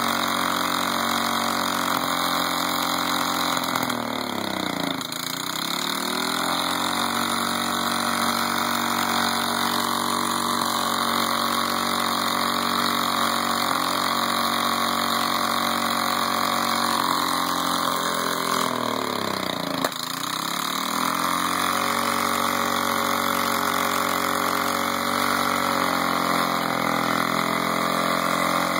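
Snapper mower engine running steadily at speed, twice bogging sharply down in pitch and recovering within about a second, about four seconds in and again near twenty seconds in.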